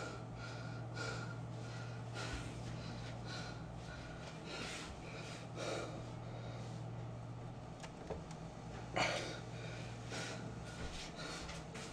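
A man's faint breaths and snorts over a steady low electrical hum, with one brief louder rustle about nine seconds in.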